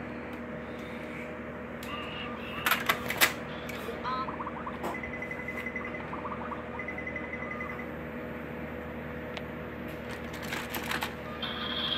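Plastic VTech Go! Go! Smart Wheels toy cars clacking on the playset's plastic track, with a cluster of sharp clicks about three seconds in and more near the end. In between, the electronic toy gives short chirps and two runs of rapid beeping.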